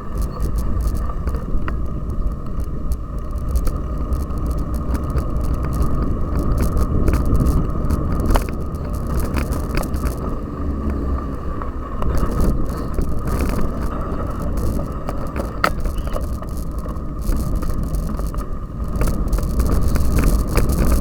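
Cyclocross bike being ridden over rough ground: a steady rumble with frequent clicks and rattles from the bike.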